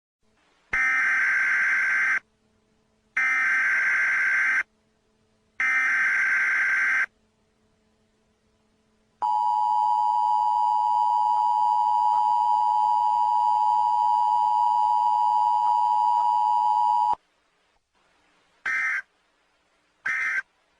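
Emergency Alert System tones: three bursts of shrill digital header data, each about a second and a half, then the two-tone attention signal held steady for about eight seconds. Near the end come two brief data bursts.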